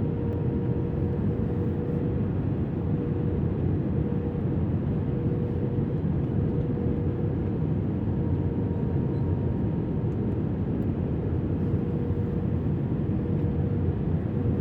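Airbus A320-200 cabin noise from inside the airliner: a steady rumble of engines and airflow with a faint constant hum through it.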